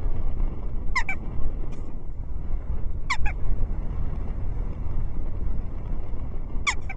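Jackdaw calling three times: short, sharp calls, each falling quickly in pitch, about a second in, about three seconds in and near the end. Under them runs a steady low rumble of wind on the microphone.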